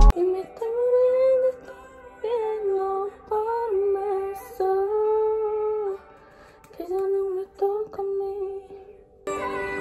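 Music: a single wordless melody, like a woman humming, in short phrases with brief pauses between them and no accompaniment.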